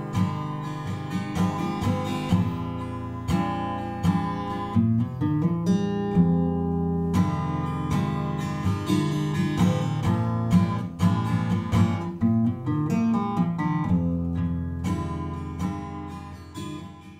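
Outro music on acoustic guitar: plucked notes and strummed chords, fading out near the end.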